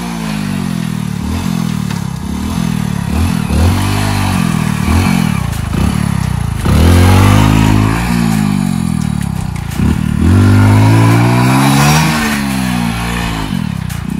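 Hero Splendor's single-cylinder four-stroke motorcycle engine revved in a string of short blips, then in two longer revs held high for a second or two each. The rider is revving to break the rear tyre loose for a drift on dirt, but the new tyres grip and the bike won't slide.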